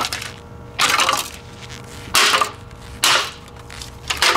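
Four heavy crashing blows about a second apart, each with a short crunching tail, as the vintage Hamilton Beach blender is smashed. A steady low hum runs underneath.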